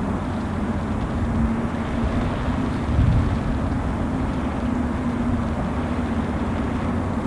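Steady low drone of ship machinery with a constant hum, under the hiss of heavy rain; a brief low swell about three seconds in.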